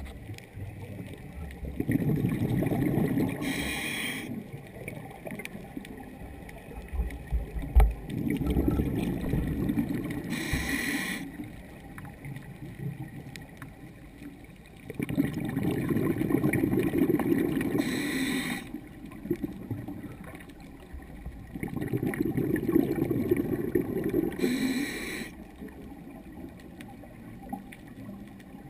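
A scuba diver breathing through a regulator underwater, four breaths about six to seven seconds apart: each a burbling rumble of exhaled bubbles lasting two to three seconds, ending in a short hiss.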